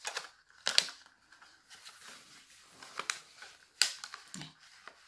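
Thin clear plastic cup crackling and clicking in the hands as fabric sock loops are woven onto its cut strips: a few sharp clicks with soft rustling between, the loudest about three-quarters of a second in and again nearly four seconds in.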